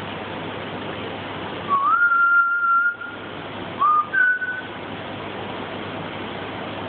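Someone whistling twice, each time sliding up to a higher held note: a longer whistle about two seconds in and a shorter one about four seconds in. A steady rushing background noise runs underneath.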